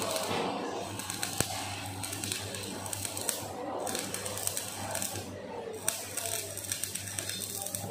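Electric arc welding on the steel drum of a roller crusher: the arc crackles and sizzles steadily, stopping briefly twice, about three and a half and five and a half seconds in. A steady low hum runs underneath.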